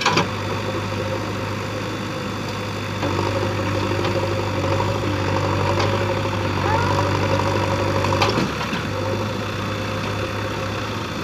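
The engines of a farm tractor and a JCB backhoe loader run together while the backhoe's bucket pushes the stuck tractor-trailer. An engine note grows stronger about three seconds in and drops back about eight seconds in, with a few sharp knocks along the way.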